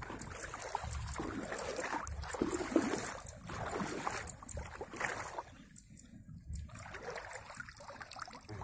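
Legs wading through knee-deep pond water, sloshing and splashing with each stride about once a second, then splashing as hands plunge into the water to grab a water monitor lizard. The sound drops away briefly a little past the middle.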